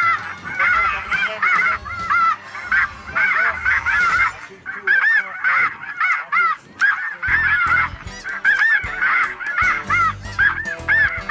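A large flock of snow geese calling, many high-pitched honking calls overlapping in a continuous clamor.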